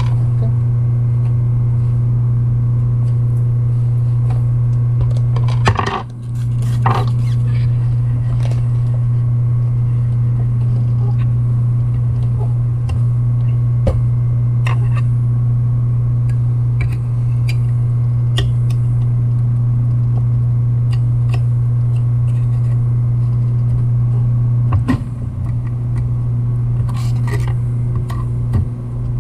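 Clutch motor of a Consew 226 industrial sewing machine humming steadily as it idles. A few light clicks and taps of handling come about six seconds in and again near the end.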